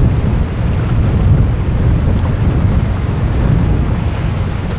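Strong gusty wind buffeting the microphone, a steady heavy rumble, with the sea washing against the shore rocks underneath.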